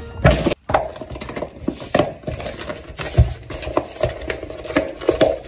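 Irregular crinkling, rustling and tapping of a cookie-mix packet being handled as someone struggles to tear it open.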